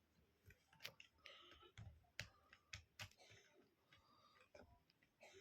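Faint, irregular clicks and snaps of LEGO Technic plastic parts being handled and pressed together, about a dozen over a few seconds.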